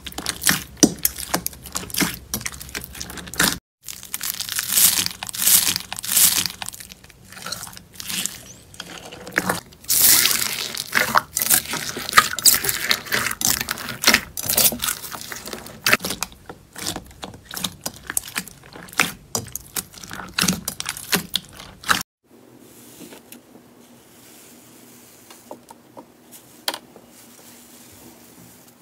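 Slime being squeezed and worked by hand, with dense crackling and popping. It changes abruptly a few seconds in, and the last quarter is much quieter, with only a few faint pops.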